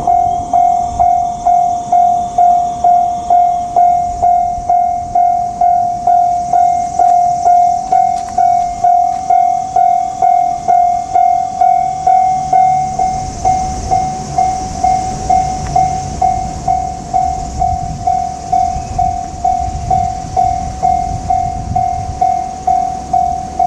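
Japanese level-crossing warning bell ringing steadily at one pitch, about two dings a second. From about halfway a JR Kyushu 787 series electric train is heard running through the crossing, with a low rumble and hissing rail noise rising under the bell.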